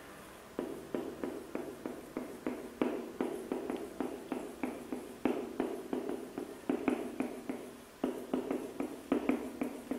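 Marker pen writing numbers on a whiteboard: a steady run of short taps and strokes, a few each second, as the digits go down.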